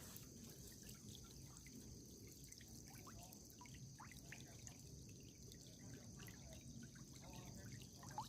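Faint water dripping and trickling in many small scattered drops, over a steady high hiss.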